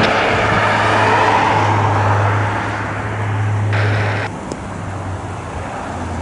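Steady low engine drone with a rushing noise, dropping off about four seconds in, as a vehicle moves away.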